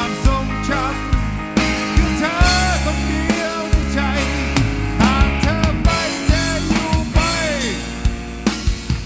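Thai rock band playing live through a PA, between sung lines: drum kit, bass and keyboard, with a lead melody of sliding, bending notes over the top.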